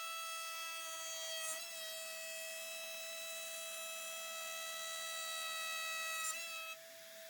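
Milling spindle whining at a steady pitch while an end mill cuts the outside contour of a thick aluminium plate. The tone falters briefly twice and drops in level shortly before the end as the cut finishes.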